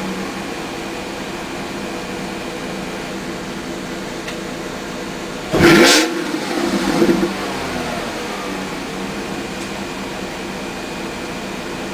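Volkswagen Touareg W12 engine idling through its exhaust, with one sharp throttle blip about halfway through, the revs shooting up and falling back, followed by a smaller blip before it settles back to a steady idle.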